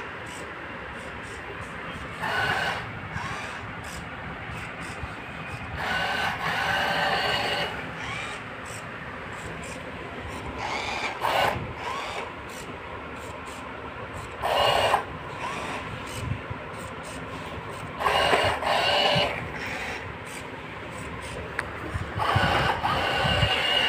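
An obstacle-avoiding robot car's small DC gear motors whining as it drives, growing louder in bursts of about a second every few seconds.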